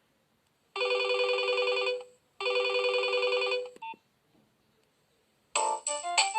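Nokia 2600 mobile phone playing a preloaded tone, a trilling two-tone ring like an old telephone bell, sounded twice for just over a second each. A short beep follows, and near the end a different, melodic ringtone begins.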